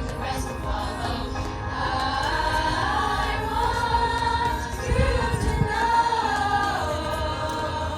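Music with singing voices carrying a slowly bending melody over accompaniment.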